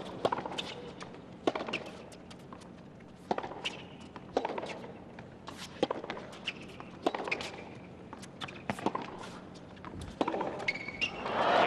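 Tennis rally on a hard court: sharp pops of racket strings hitting the ball about every second, with ball bounces and players' footsteps in between. A burst of crowd applause rises at the very end as the point finishes.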